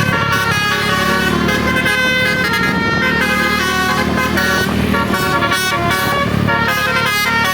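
Bus telolet horn, a Basuri multi-tone air horn, playing a quick tune of stepping notes over the bus's engine running.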